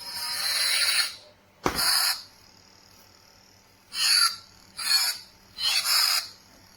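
Sound effects from a Hlieeosfcn RGB toy lightsaber: a string of hissing, whooshing swing sounds, some falling in pitch, with a sharp clash a little under two seconds in.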